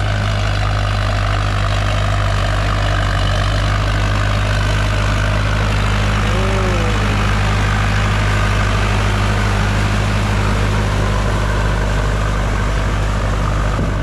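Tractor engine running steadily while ploughing a flooded rice field, its low, even note holding constant throughout.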